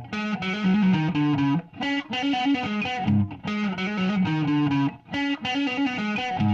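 Electric guitar with P90 pickups played through a Caline Hot Mushroom compressor pedal into a solid-state amp, with a slightly driven, sustained tone. Short phrases of held notes, with brief breaks between them every second and a half or so.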